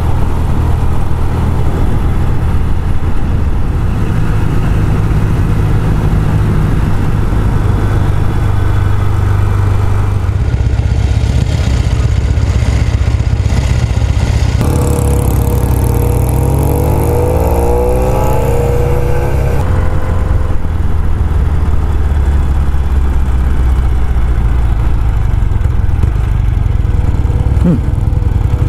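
Classic British parallel-twin motorcycle engine running at road speed, heard on board with wind rush. Near the middle the engine's pitch climbs as it accelerates.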